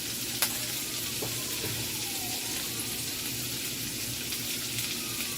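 Sausages frying in bacon drippings in a pan, a steady sizzle, with one sharp click about half a second in.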